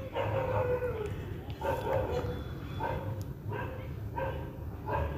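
Short high-pitched vocal calls repeating about once a second over the steady low rumble of a moving passenger train carriage.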